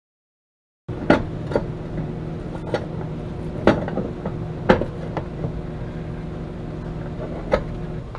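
Microwave oven running with a steady hum while the toothpaste inside it gives six or so loud, sharp cracking pops at uneven intervals. The toothpaste is overheating, smoking and cracking the glass turntable plate. The first second is silent.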